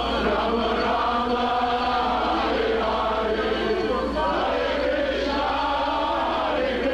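A group of voices chanting together in a devotional chant, many sustained lines whose pitch rises and falls, over a steady low hum.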